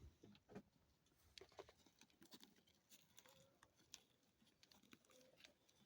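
Near silence, with faint scattered clicks and taps.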